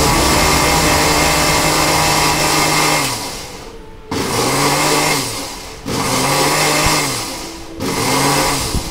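Philips mixer grinder with a steel jar running steadily, then switched off about three seconds in. It is then pulsed on and off three more times, its motor pitch rising as it spins up and falling as it coasts down after each burst.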